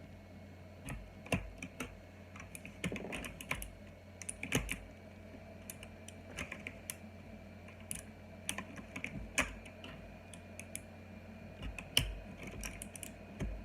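Mechanical keyboard with clicky OUTEMU Blue switches (Cherry MX Blue equivalent) being pressed: scattered, irregular key clicks, a few at a time, with gaps between.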